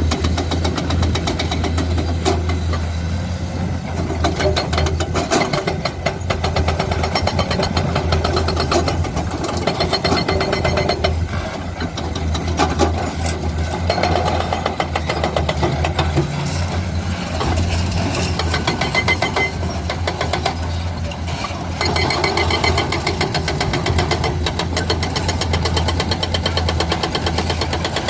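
Heavy diesel engine of earthmoving machinery running steadily, with a dense knocking clatter and repeated swells in level as it works.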